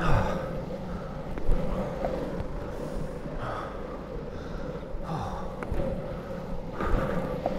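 Longboard wheels rolling on tarmac with a steady rumble, broken every second or two by the rider's foot pushing off the road, each push a short scuff.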